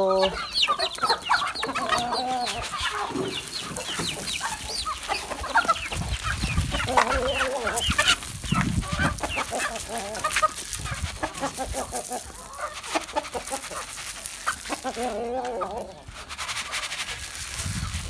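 A flock of aseel chickens clucking and calling while being fed grain, with many short, quick high calls throughout.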